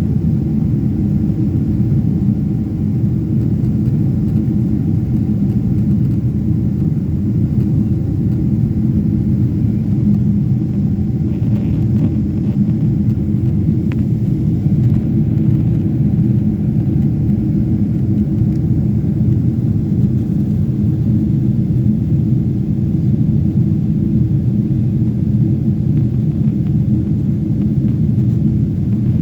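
Steady, loud rumble of jet engines and airflow heard inside an airliner's cabin, unchanging throughout.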